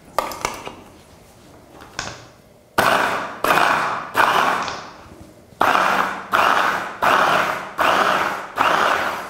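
Hand blender's motor unit on a mini chopper bowl, pulsed to mince raw hake, bacon and cheese into a burger paste. After a couple of clicks, it runs in about eight short bursts of under a second each. The bursts come as three, a brief pause, then five, each starting sharply and fading. Pulsing keeps the mix from turning into a mush.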